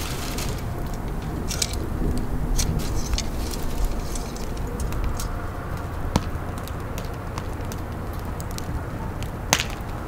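Wood fire burning briskly, a steady low rush of flame with scattered crackles and pops; a sharp pop a little past halfway and a louder one near the end.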